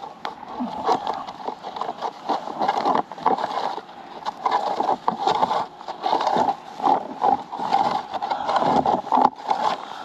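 Long toothed metal rake scraping in and out along a beehive's wooden bottom board, dragging dead bees out through the entrance in repeated irregular strokes, about one a second.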